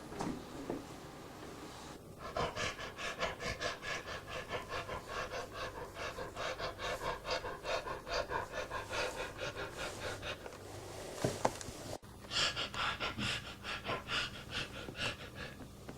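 A person breathing heavily and fast, panting at about three breaths a second, starting about two seconds in. A sharp click and a brief break come about three-quarters of the way through, then the panting carries on.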